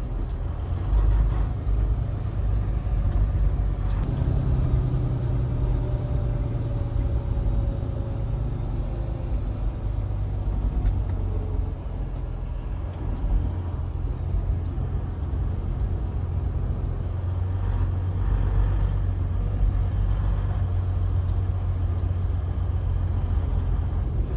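Semi-truck engine running with a steady low rumble.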